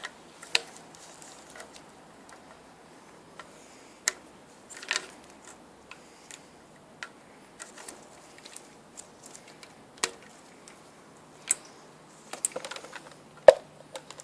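Scattered light clicks and taps of hard plastic parts being handled while a plastic fitting is slid onto a Numatic vacuum cleaner motor, irregularly spaced, with the sharpest click near the end.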